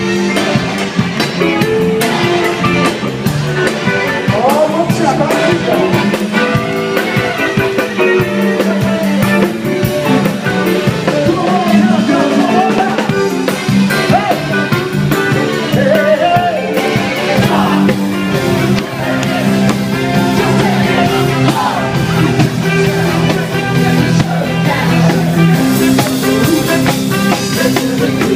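Live band playing dance music with a drum kit, electric guitar, bass and horns, and a singer's voice over the top.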